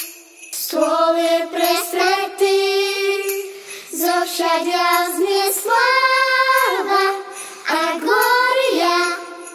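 A children's choir singing a Christmas song melody in held, gliding notes, with sleigh bells jingling in the accompaniment.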